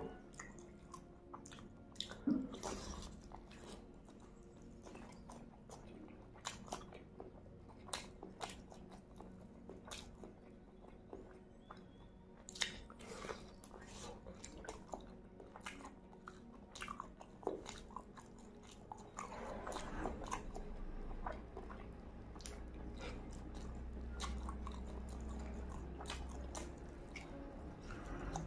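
Close-miked eating: biting meat off a leg bone and chewing it, with many sharp wet mouth clicks and smacks. A low rumble comes in about two-thirds of the way through.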